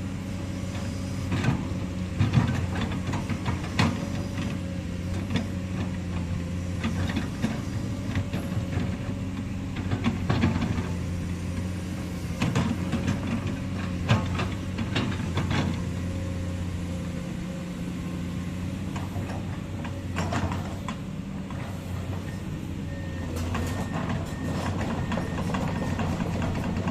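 Komatsu hydraulic excavator's diesel engine running steadily, with irregular clanks and knocks from the machine working as it digs.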